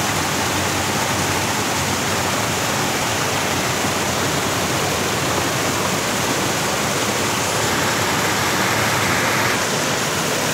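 Steady rush of water pouring over a waterfall, a constant even noise that hardly changes.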